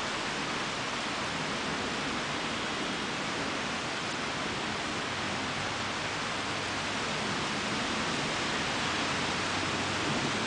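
Steady hiss of heavy rain during a thunderstorm.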